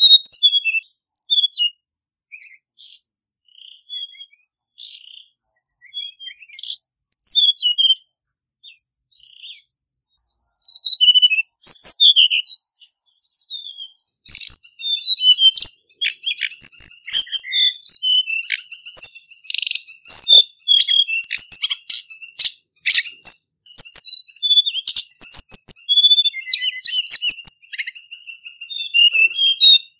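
Male Hill Blue Flycatcher singing: phrases of clear, high whistled notes. The phrases are spaced out at first and grow denser and faster about halfway through, with rapid trills over a steady high note.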